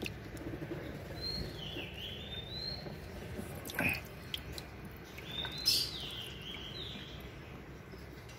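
Small birds chirping in the background, short high calls sliding down in pitch. A splashy background of water stirred by the turtles being handled in a shallow tub, with two short louder noises about four and five and a half seconds in.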